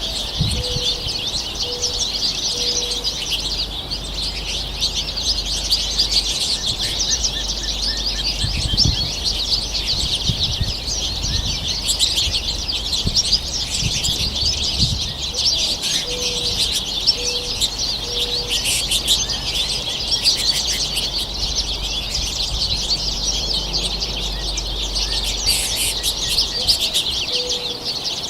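A flock of small songbirds, finches at a feeder, chirping and twittering continuously in a dense overlapping chatter. Three times a dove coos in a short series of low notes.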